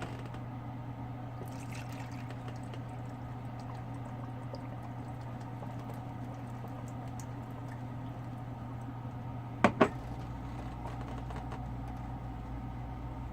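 Bottled water being poured into a single-serve coffee maker's water reservoir, a steady stream. Two sharp knocks come about ten seconds in.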